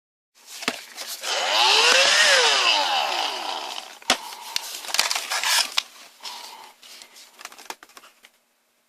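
Electrolux ZB2902 cordless stick vacuum's motor running: a whine rises in pitch for about two seconds, then falls away. Clicks and handling knocks follow, with a couple of shorter whirring spells.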